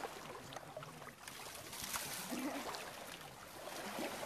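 Shallow river water splashing and sloshing around elephants and people wading in it, with scattered short splashes over a steady running-water hiss.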